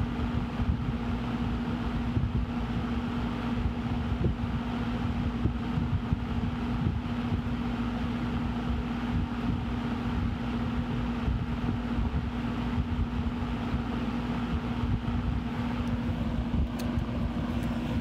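Vintage Eskimo model 2020 20-inch box fan running: a steady rush of air with a constant motor hum. A couple of faint clicks near the end.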